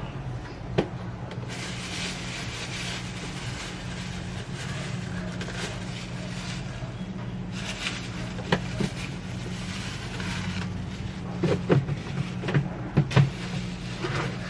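A steady low mechanical hum, like a small motor running. Over it come two stretches of rustling hiss and a few light knocks and clicks, most of them near the end, as things are handled in the kitchen.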